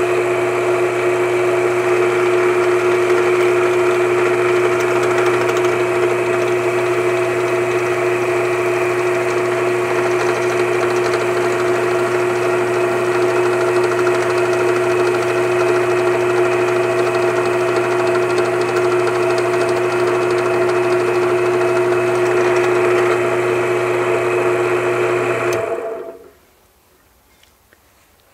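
Drill press motor running steadily with a constant hum while a 7/32-inch bit bores a hole about 5/8 inch deep into a wooden ball; the motor is switched off and stops about 26 seconds in.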